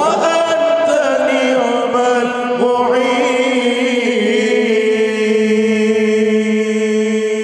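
Male voices of an Acehnese sholawat group singing a cappella without words: an ornamented lead voice slides up and down over a held lower note, then the voices settle into a long sustained chord.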